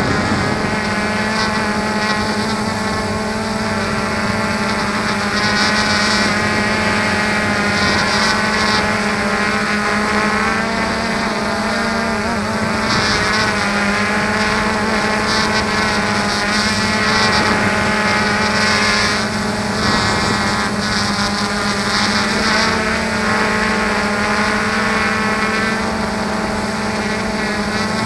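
Small drone's electric motors and propellers running in flight, recorded on board: a steady buzzing whine whose pitch shifts slightly as it manoeuvres.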